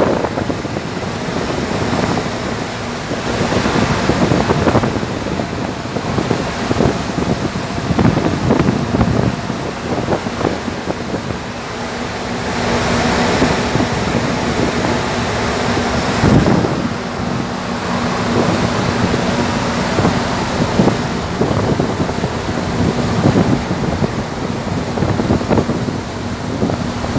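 Wind buffeting the microphone over the rushing water of a container ship's churning wake, with a steady low hum from the ship underneath.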